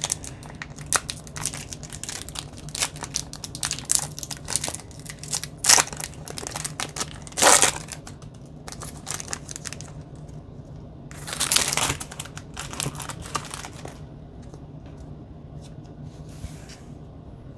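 Foil Pokémon booster pack wrapper crinkling and being torn open. It is a run of crackles, with longer tearing rips about seven and eleven seconds in, and then quieter handling of the cards near the end.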